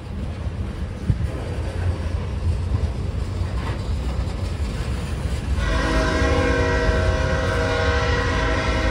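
Freight train cars rolling past, a steady low rumble with wheel clatter over the rail joints. About halfway through, a loud steady chord of several tones joins in: a train horn sounding.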